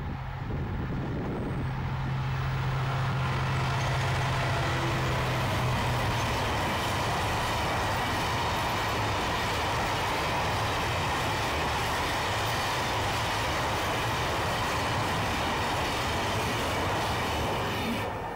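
Class 66 diesel locomotive's EMD two-stroke V12 engine running as it draws near and passes, a steady low hum that gives way about six seconds in to a long train of empty JNA box wagons rolling by with continuous wheel-on-rail noise.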